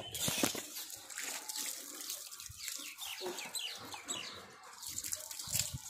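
Small birds chirping in quick, short calls, with hens clucking, over a faint hiss.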